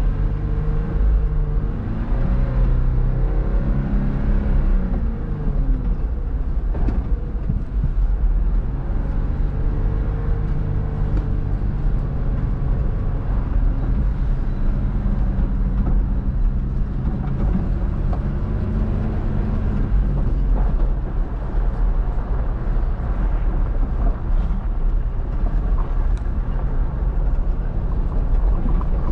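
Off-road vehicle engine running under load, its pitch rising and falling as it revs up and down, over a heavy low rumble.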